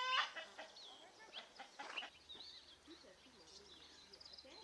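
Faint outdoor ambience of birds chirping and calling in short, scattered calls, after one loud call right at the start.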